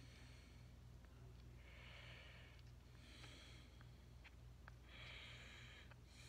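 Faint breathing close to the microphone, a soft hiss roughly every second and a half, over a steady low hum.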